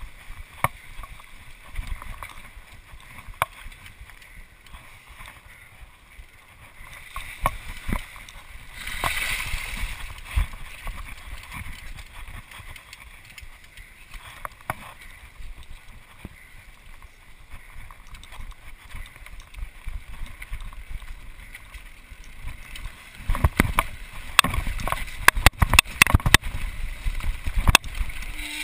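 Mountain bike riding over a rough dirt trail: steady tyre and wind rumble with frequent irregular knocks and rattles from the bike over bumps and roots, growing denser and louder over the last few seconds.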